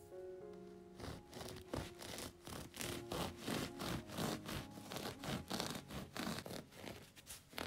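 Bread knife sawing through the hard crust of a flour-dusted loaf: a quick run of scratchy, crunching strokes that starts about a second in, over soft background music.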